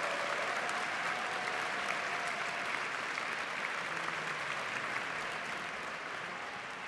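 Large concert-hall audience applauding, a steady even clapping that slowly fades toward the end.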